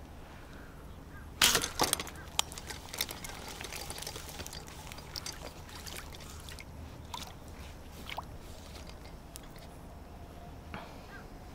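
Water splashing and trickling: a sharp splash about one and a half seconds in, then steady sloshing and dribbling with scattered small splashes and clicks.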